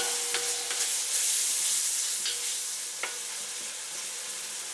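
Chopped chicken hearts and gizzards sizzling in hot oil as they brown, with a few sharp clicks in the first few seconds.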